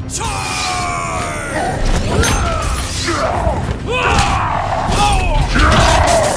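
Cartoon sound effects: a long falling tone at the start, then a jumble of quick bending squeaks and knocks.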